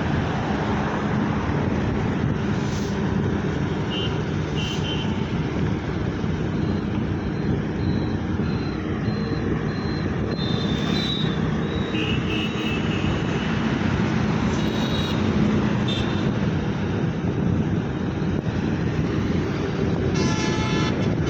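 Steady road traffic noise from vehicles on a highway, with a few short high-pitched tones and a brief pitched sound near the end.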